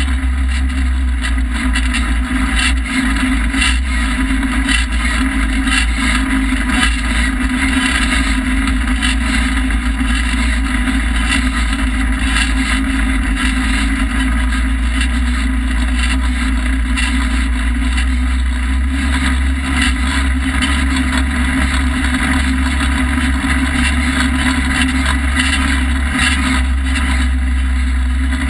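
Polaris RZR side-by-side running steadily at trail speed, heard from a camera mounted on the vehicle, with wind noise and frequent small knocks and rattles over the bumps.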